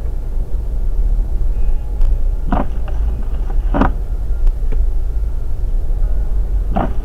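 Car engine and road noise heard from inside the cabin, a steady low rumble. Short knocks come in pairs about a second apart, twice.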